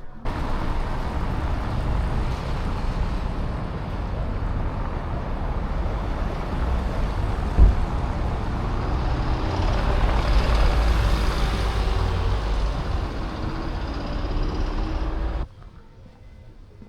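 Loud, low rumbling of a large road vehicle running close by, with a single thump about halfway through. The sound cuts in and out abruptly.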